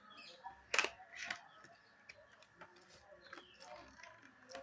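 Handling sounds from highlighter packaging being unboxed: scattered light clicks and rustles, with a sharper click a little under a second in.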